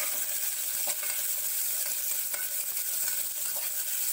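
Sliced onions sizzling as they fry in ghee in a pressure cooker, stirred with a metal spoon that scrapes and taps the pot lightly a few times.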